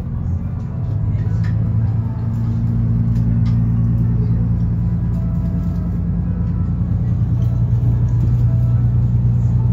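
Diesel railcar engine running steadily under load, heard from inside the passenger cabin: a low, even hum that grows louder about a second in.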